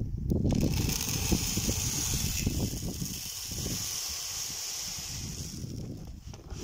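Granular fertilizer pouring in a stream from a tub into the plastic hopper of a hand-held spreader: a steady sandy hiss that fades out near the end as the pour stops.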